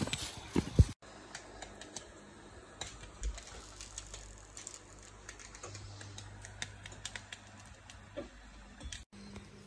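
Footsteps on a forest path with a few heavy steps in the first second, then a quieter stretch of scattered faint light clicks over a low steady hum.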